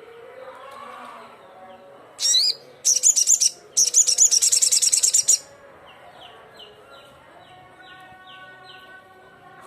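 Sogon (crimson sunbird) singing. Three loud bursts of very high, rapid, trilling chirps come a couple of seconds in. They are followed by softer, short falling notes repeated about twice a second over fainter, lower warbling.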